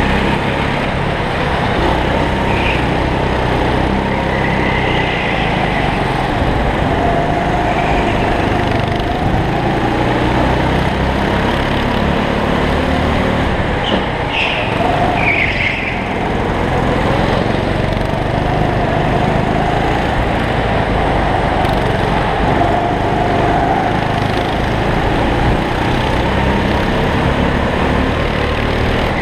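Go-kart engine running hard on a lap, heard from on board the kart, its pitch rising and falling through the corners. A few brief high squeaks come about halfway through.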